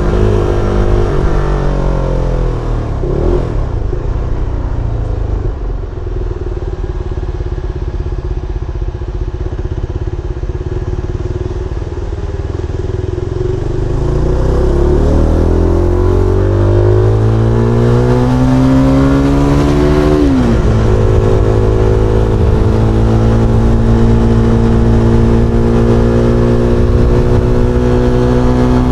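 SBM 250 S motorcycle engine and exhaust on the road. The note falls away and runs lower for a while. About halfway through it grows louder and climbs steadily, drops suddenly as with an upshift, then holds a steady cruising note.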